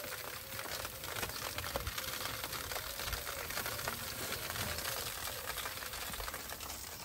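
Fish sizzling on a wire grill over a barbecue fire of glowing embers: a steady hiss with many small crackles and pops.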